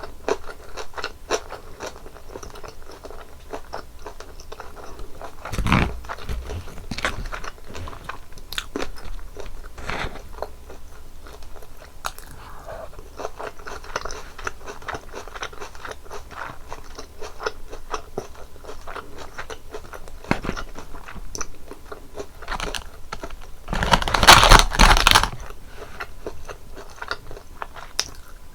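Close-miked eating of a crispy breaded cheese pork cutlet: steady crunching and chewing, with many small crisp crackles of the fried coating. About three-quarters of the way through comes a louder burst of crunching, about a second and a half long.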